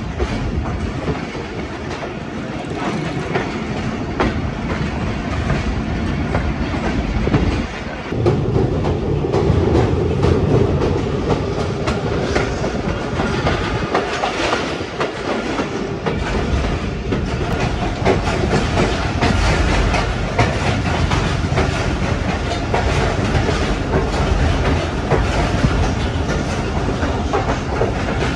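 Passenger coach running along the track, heard from its open doorway: a steady rumble with the clickety-clack of the wheels over the rails. It gets louder about eight seconds in.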